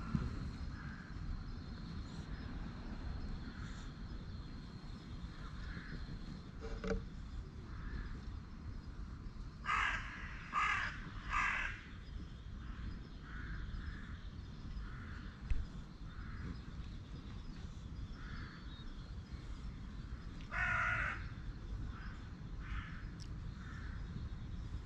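Animal calls: three loud calls in quick succession about ten seconds in and another about twenty-one seconds in, with fainter calls between, over a steady low rumble.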